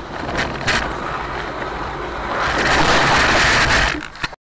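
Car's road and tyre noise on a wet road, heard from inside the car, with two short clicks about half a second in. A louder rushing noise follows for about a second and a half as the car runs wide at a bend toward the guardrail, then the sound cuts off abruptly.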